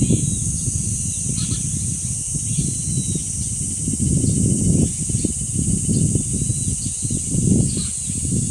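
Cicadas droning in one steady high-pitched buzz, with wind gusting on the microphone in low rumbles and a few short bird chirps.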